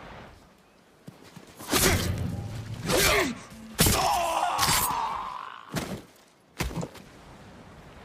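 Sword-fight sound effects: about five sharp hits in quick succession, one of them followed by a wavering ring that fades over a second or so.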